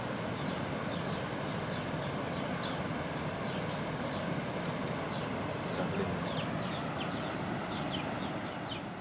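Birds chirping over and over in short, high, falling notes above a steady background hiss.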